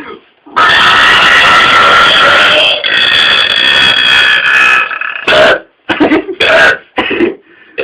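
A man's long, loud burp lasting about four and a half seconds, followed by several short bursts of sound.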